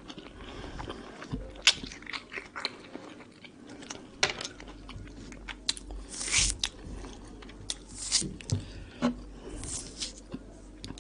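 Close-up wet clicks and juicy tearing of a peeled mandarin being pulled apart into segments by hand. There are two longer tearing sounds, one a little past the middle and one near the end.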